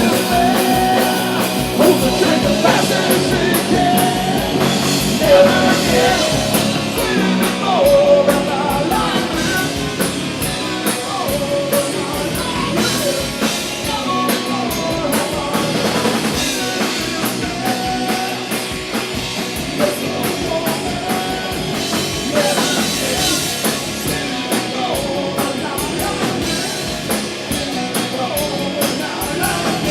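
Live rock band playing: electric guitar, bass and drum kit, recorded through a DSLR camera's built-in microphone.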